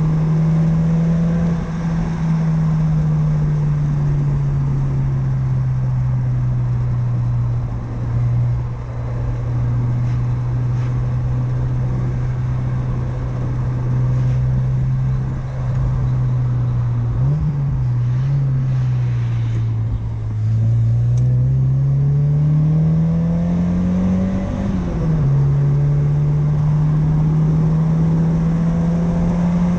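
1993 Mazda MX-5 Miata's 1.6-litre four-cylinder engine heard through its aftermarket Cobalt exhaust while driving. The revs sag slowly, dip about two-thirds of the way through, then climb. Near the end a gear change drops them sharply, and they rise again.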